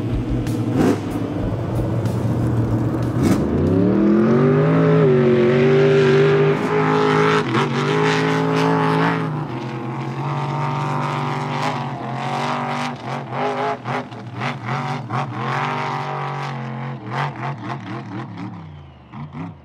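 Ford Fusion NASCAR Cup race car's V8 engine revving hard. It climbs steeply about three seconds in and holds at high revs, then rises and falls with sharp cracks while the rear tyres spin and smoke.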